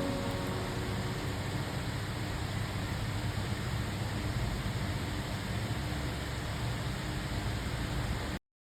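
Steady hiss-like noise with a faint low hum, the tail of a music track dying away in the first moment; it cuts off abruptly near the end.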